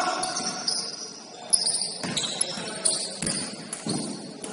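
A basketball bouncing on a court several times, with short high-pitched squeaks in between.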